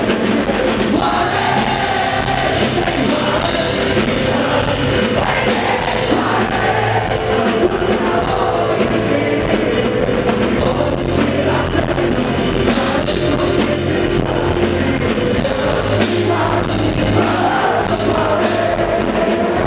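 A rock band playing live, with a man singing into a microphone over drums and amplified instruments.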